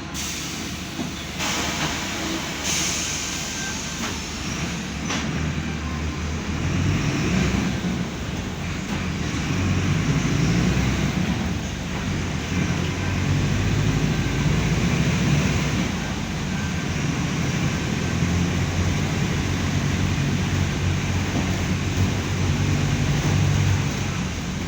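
Mercedes-Benz OF-1519 Bluetec 5 city bus's four-cylinder diesel engine running under load, its low drone rising and falling with engine speed and growing louder from about seven seconds in. A brief hiss comes a few seconds in.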